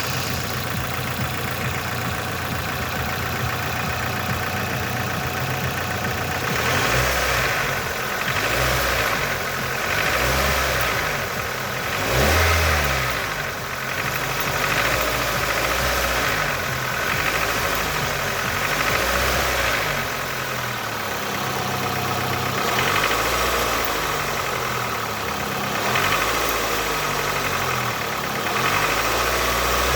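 Nissan QG18DE 1.8-litre four-cylinder engine idling, then blipped up and back down repeatedly from about seven seconds in, with a knock in the engine whose cause is in question.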